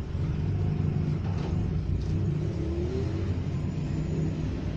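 A steady low rumble like an idling engine.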